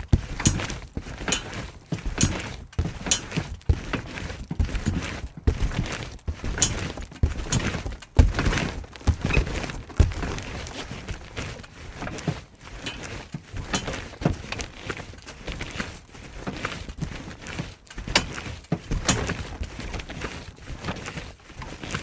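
Someone jumping on a trampoline: repeated thumps of landings on the mat, coming unevenly at about one to two a second.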